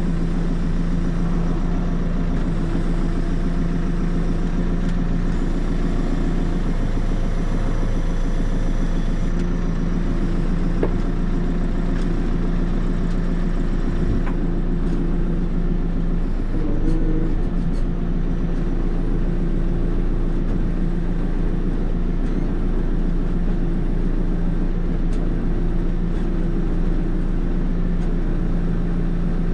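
JCB 3CX backhoe loader's diesel engine running steadily, with a brief rise in pitch about seventeen seconds in.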